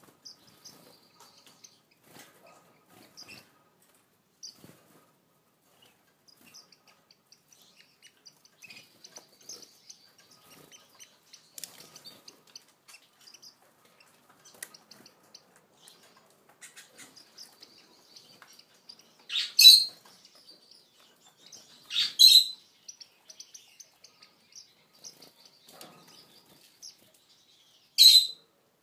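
Cordon-bleu finches calling: faint, high, thin twittering with light ticks throughout, and three loud, short high calls, two close together about two-thirds of the way in and one near the end.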